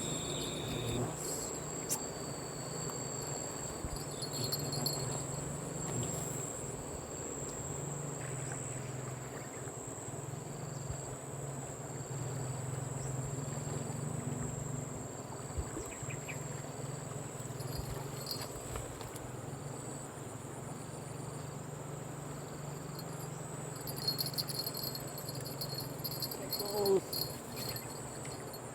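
Insects chirping steadily: a constant high trill and a shorter chirp that pulses about once a second, over a low steady hum.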